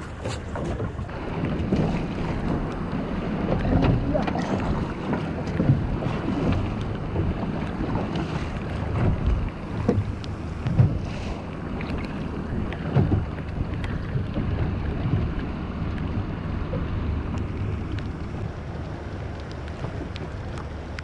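Wind buffeting the microphone on a small fishing boat at sea, over a steady low hum and water sloshing against the hull, with scattered small knocks.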